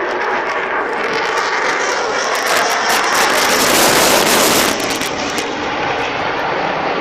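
Jet noise from a Eurofighter Typhoon's twin EJ200 turbofans as the fighter flies past, swelling to its loudest midway and falling off sharply about two-thirds of the way through.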